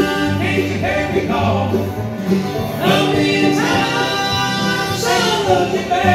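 Live bluegrass band playing, with banjo, upright bass, mandolin and acoustic guitar, while men sing long held notes in harmony over it.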